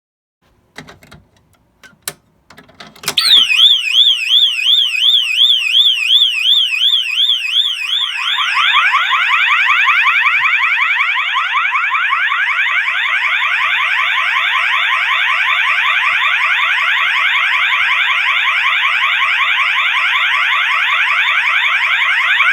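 A few small clicks, then about three seconds in an electronic fire alarm sounder starts a rapid warble tone. About five seconds later a second, lower sweeping alarm tone joins it, and both keep sounding together.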